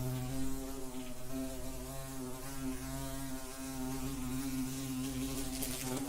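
Wasp buzzing in flight, a steady drone that wavers slightly in pitch, with a few brief ticks near the end.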